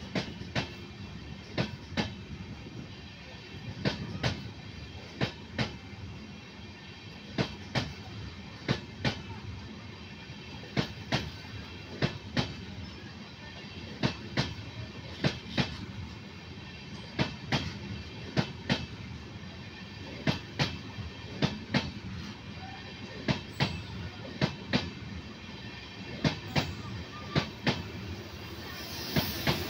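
LHB passenger coaches rolling past, their wheels clicking over rail joints in quick pairs and clusters over a steady rumble. Near the end the noise swells louder.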